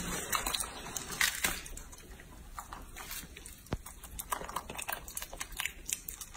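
A young macaque chewing a mouthful of banana, with scattered short clicks of its chewing and faint rustling of the banana peel in its hands.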